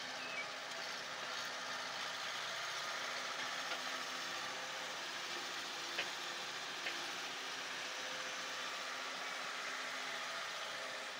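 Hitachi wheeled excavator's diesel engine running steadily as the machine digs and swings soil, with two short sharp knocks about six and seven seconds in.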